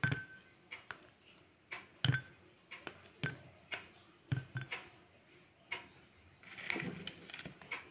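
Cadbury chocolate bar snapped by hand into small pieces that drop into a glass bowl: an irregular series of sharp snaps and clicks, with a soft rustle near the end.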